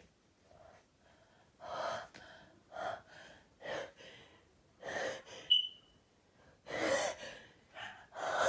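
A person's repeated sharp, gasping in-breaths, roughly one a second, the hitching breaths of a sneeze building up. One brief, sharper sound with a short squeak comes about five and a half seconds in.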